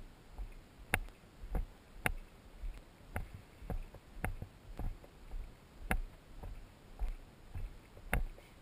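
Footsteps on a dry dirt hiking trail at a steady walking pace, a sharp tap with each step, a little under two steps a second.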